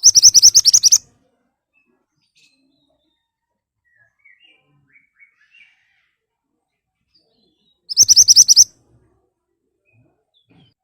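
Mantenan songbird giving a sharp, rapid volley of about ten high repeated notes lasting about a second, then a second identical volley about eight seconds later, with a few faint chirps in between.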